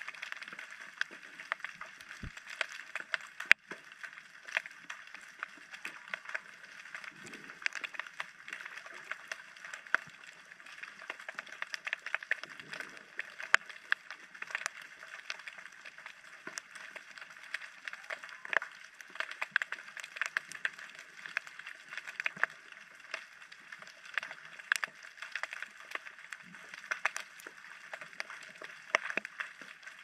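Underwater ambience: a dense, irregular crackle of small clicks and pops over a faint hiss, with one sharper knock about three and a half seconds in.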